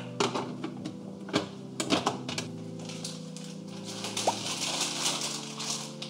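Light plastic clicks and knocks as a water-filter cartridge is handled in its plastic filter jug, then crinkly rustling of plastic packaging from about three and a half seconds in, over soft background music with long held notes.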